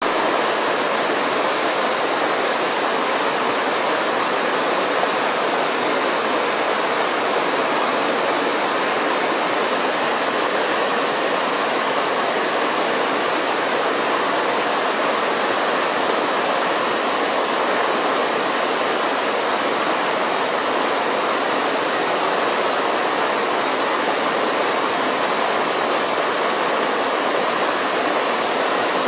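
Steady, even rushing hiss with no separate sounds in it, unchanged throughout, with a faint thin high tone held underneath.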